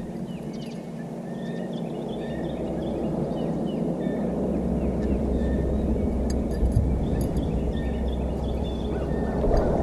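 Birds chirping, many short repeated calls, over a steady low rumble that grows louder near the end.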